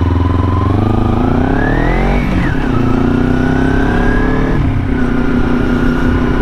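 Kawasaki Ninja 250R's carbureted parallel-twin engine accelerating: the engine note climbs for about two seconds, falls sharply at an upshift, pulls up again, then drops once more about halfway through and holds steady. The exhaust sounds stock and not especially loud.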